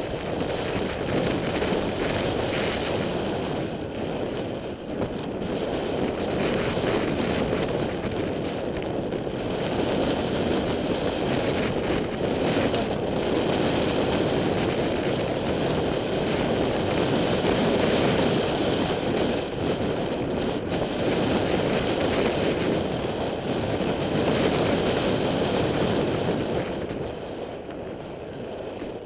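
Mountain bike rolling fast down a rough dirt trail: tyres crunching over dirt and rocks with constant rattling and clicking from the bike, under wind noise on the microphone. It eases a couple of seconds before the end.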